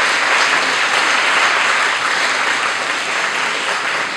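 Audience applauding, the clapping slowly dying down near the end.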